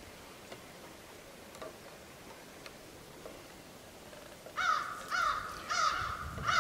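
A crow cawing, a run of about four or five caws at roughly two a second starting about two-thirds of the way in, after a few faint clicks.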